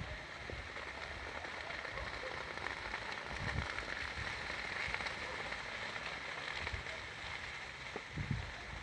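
Burning brush and grass crackling in a steady, dense hiss much like rain, with a couple of low thumps on the microphone about three and a half seconds in and near the end.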